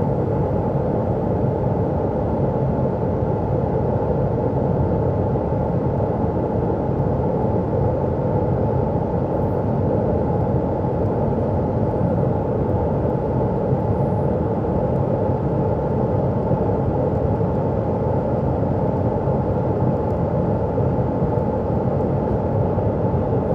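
Steady rush of air from a Lincoln Electric fume-extraction hood's blower, drawing off fumes during TIG welding of stainless steel. The sound is level and unbroken, heaviest in the low and middle range.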